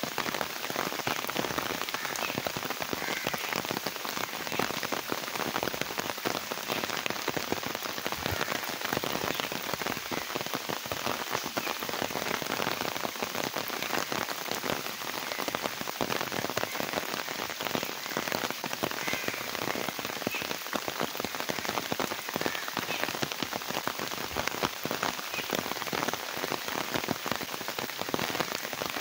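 Steady rain falling on a flooded road and wet grass: a constant hiss made of countless small drop splashes on the puddles.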